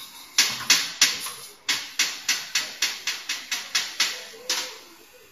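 Air-cylinder press of a filter-bag snap band making machine cycling rapidly, about three sharp strokes a second, each a short burst of noise that fades quickly. The run stops shortly before the end.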